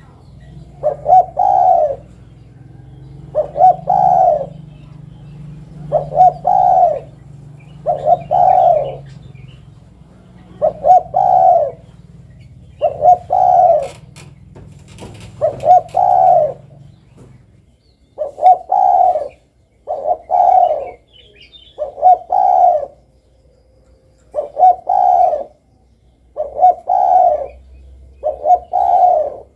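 Spotted dove (derkuku) cooing, short multi-note coo phrases repeated roughly every two seconds. A low hum sits underneath for the first two-thirds and stops.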